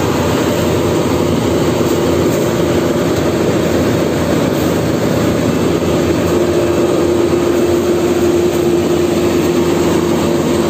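Yanmar AW70GV rice combine harvester running steadily while cutting, its diesel engine and machinery making a constant loud drone with a steady whine that grows clearer about halfway through.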